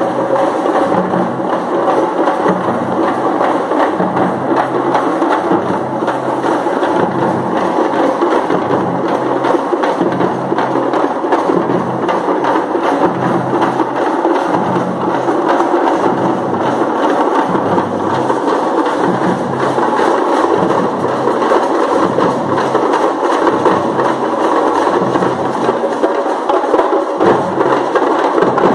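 Several parai frame drums beaten with sticks in a fast, unbroken dance rhythm, loud and dense throughout.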